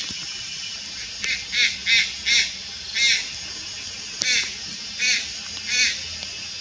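Juvenile Malayan night heron calling: about eight short, honking calls, some in quick succession, with gaps of up to about a second between them.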